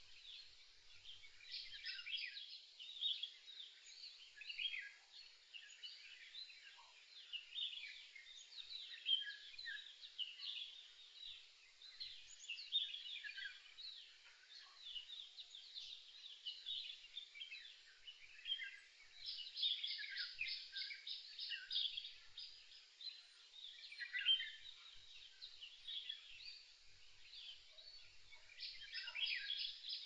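A chorus of many small birds singing and calling together, with overlapping chirps and trills and a quick, rapidly repeated trill about twenty seconds in.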